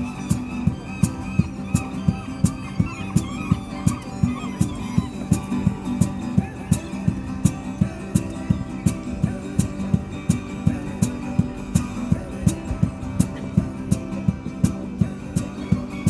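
Background music: an upbeat track with plucked guitar over a steady, quick drum beat.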